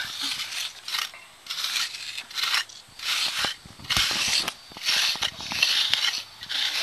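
Hand trowel scraping and levelling packed soil in an excavation unit: repeated short rasping strokes, about one or two a second.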